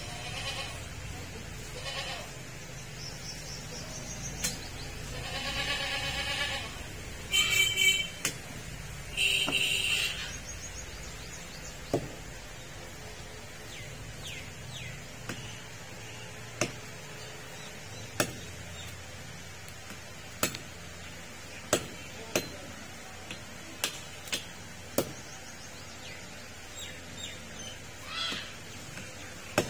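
A goat bleats three times, loudly, about six to ten seconds in. After that comes a butcher's cleaver chopping meat and bone on a wooden stump block: sharp knocks, one every second or two.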